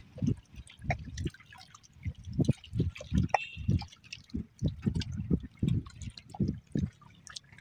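Small sea waves lapping and gurgling at the shoreline in quick, irregular splashes.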